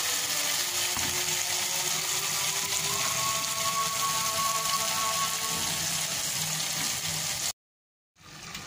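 Tomato-and-spice masala frying in oil in an aluminium pot, a steady sizzling hiss. It cuts off abruptly about seven and a half seconds in and returns more quietly.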